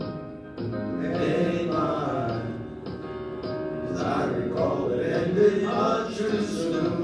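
Show choir singing.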